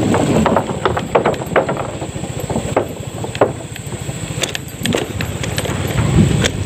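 Small vehicle engine running as it travels, with sharp knocks and clatters from the wooden plank bridge under the wheels, thickest in the first two seconds, then scattered bumps as it goes on along the dirt road.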